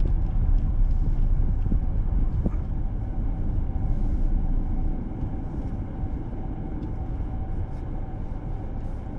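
Inside a car: low rumble of the car and its tyres on a snow-covered road, easing off as the car brakes to a stop at a red light. It settles to a quieter steady hum about five seconds in.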